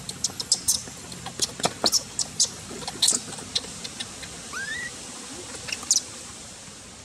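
Dry leaves and twigs crackling and snapping in quick irregular clicks as a newborn macaque crawls over them. A short rising squeak sounds about four and a half seconds in.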